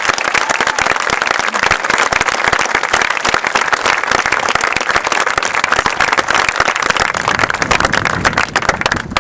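Crowd applauding and cheering, a dense, steady clatter of many hands clapping.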